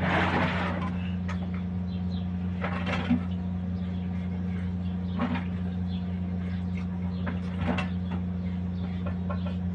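A steady low hum with a few brief clatters and scrapes of kitchen utensils, spaced a couple of seconds apart, while food is prepared.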